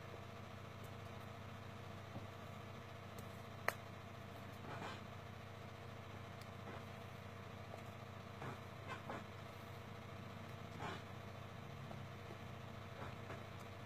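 Steady background hum of a room, made of several fixed tones, with a few soft taps and one sharp click about four seconds in.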